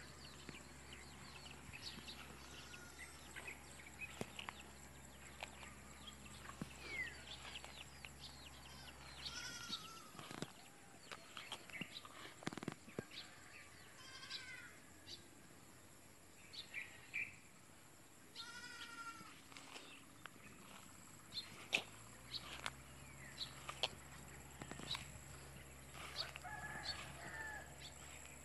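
Farm animals calling off and on: goats bleating in wavering, drawn-out calls of about a second, with shorter bird calls between. Scattered sharp clicks run through it.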